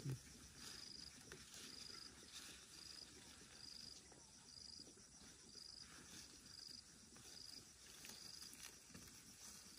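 Faint insect chirping: a short high chirp repeated evenly, a little more than once a second, over quiet rustling, with a brief low thump right at the start.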